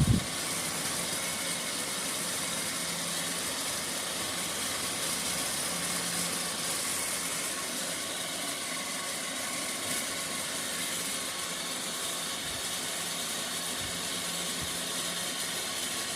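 Homemade table fan driven by a 775 DC motor on 12 volts, running steadily with an even whir and rush of air. There is a brief knock at the very start.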